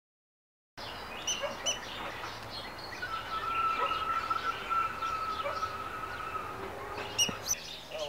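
Birds calling in a wetland, starting about a second in, with short sharp high calls repeated throughout. A steady thin tone holds for about four seconds in the middle.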